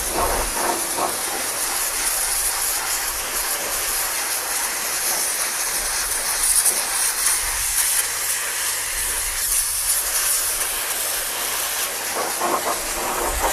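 High-pressure washer jet spraying water onto a car's steel wheel hub, a steady loud hiss, blasting off caked-on grease.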